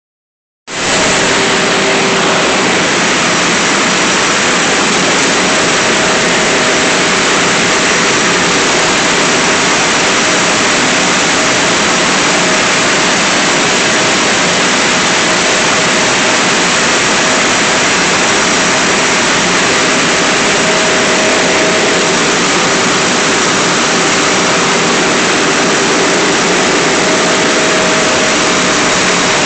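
Web-fed printing press running at speed: a loud, steady mechanical noise with a few faint steady tones over it, starting suddenly just under a second in.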